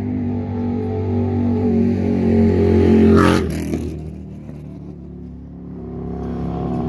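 Road traffic on the overpass: a motor vehicle's engine grows louder and passes close with a whoosh of tyres about three seconds in, then fades, and another vehicle approaches near the end.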